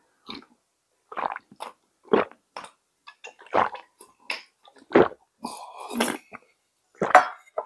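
Close-miked mouth sounds of eating: irregular chewing smacks and wet clicks, with one longer noisy stretch a little after five seconds in.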